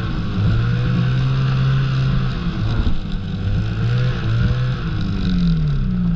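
Ski-Doo snowmobile engine running at low riding speed, its pitch wavering with the throttle and rising slightly near the end.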